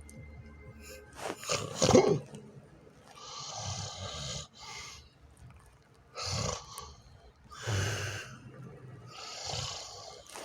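A person snoring. There is one loud snort about two seconds in, followed by a string of noisy snoring breaths every one to two seconds.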